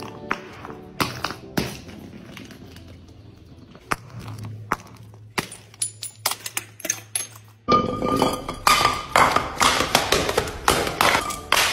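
Glass jars tumbling down concrete steps: a series of sharp clinks and knocks as the glass strikes each step. From about eight seconds in, the knocks come thicker and louder.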